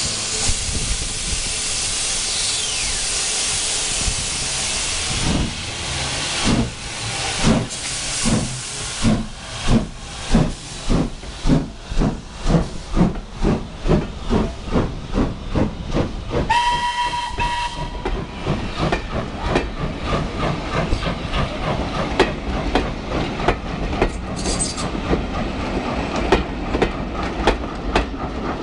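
LSWR M7 0-4-4 tank steam locomotive pulling away. Steam hisses at first, then the exhaust beats start slow and quicken to about two a second. One short whistle blast sounds about two-thirds of the way through, followed by the carriages' wheels rattling over the rail joints as the train passes.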